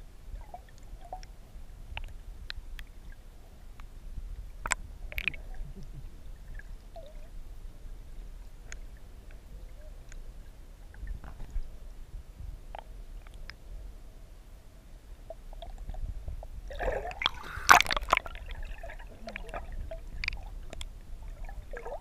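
River water heard underwater through a GoPro's waterproof housing: a steady low rumble with scattered small clicks and ticks. A louder rush of gurgling and splashing comes about seventeen seconds in.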